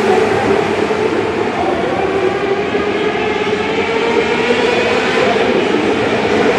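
A pack of small winged dirt-track sprint cars racing together inside a large arena, their engines at high revs in a loud, steady, overlapping drone whose notes drift up and down as the cars go round the oval.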